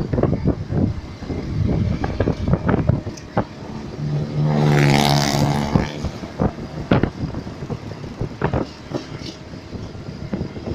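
A bus's four-trumpet telolet air horn sounds one steady, chord-like blast lasting about two seconds, starting about four seconds in. Scattered clicks and knocks are heard before and after it.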